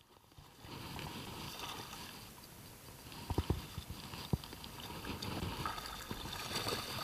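Water splashing and sloshing at the side of a small boat as a landing net is worked in the water to land a fish, with a quick cluster of sharp knocks about three and a half seconds in and another about a second later.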